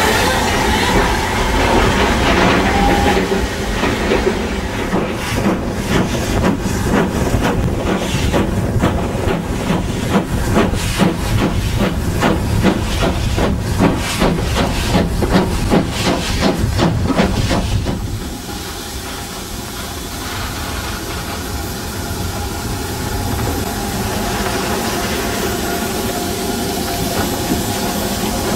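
Steam locomotive hissing steam, with a long stretch of rapid, uneven beats through the middle that gives way to a steadier, quieter hiss for the last third, from GWR 5600-class 0-6-2T tank engine 5637 standing in steam.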